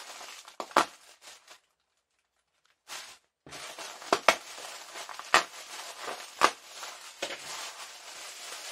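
Snack packaging crinkling and rustling as it is handled, with several sharp crackles. The sound drops out completely for about a second and a half near the start.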